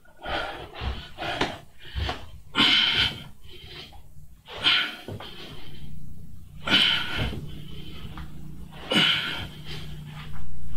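A man breathing hard from exertion during reverse crunches: forceful breaths in and out, one every one to two seconds.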